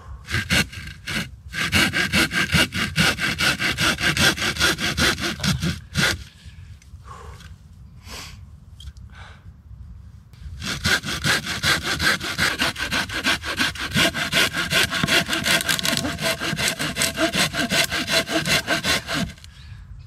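Hand saw cutting through a log with quick, regular back-and-forth strokes. The sawing stops for about four seconds near the middle, then starts again and runs on until shortly before the end.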